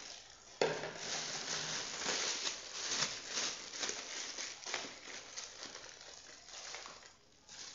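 Thin plastic bag crinkling and rustling in the hands as Oreo cookie wafers are tipped into it and the bag is twisted closed; the crinkling dies down near the end.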